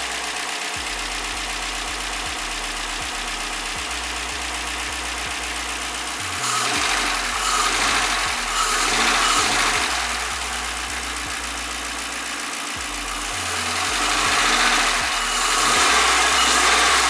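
Dodge Challenger R/T's 5.7-litre Hemi V8 running steadily at idle, getting louder and fuller twice for a few seconds. It runs without an obvious knock, a sign the engine seems healthy.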